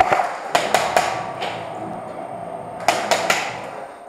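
Airsoft gun shots: sharp cracks fired singly and irregularly, a quick cluster at the start, a few more within the first second and a half, then three more about three seconds in, each with a short echo off concrete walls.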